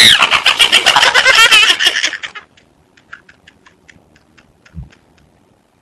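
A girl's loud, high-pitched shriek of laughter for about two seconds, then faint, short gasping laughs, about three a second, until near the end.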